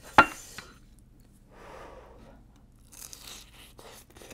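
Close-miked eating sounds: a sharp click just after the start, then a crisp crunch and chewing of a fried, cheese-covered bite near the end.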